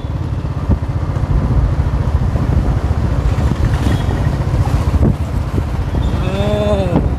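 Motorcycle riding along a road, heard from the pillion seat: a steady low engine rumble mixed with wind noise on the microphone.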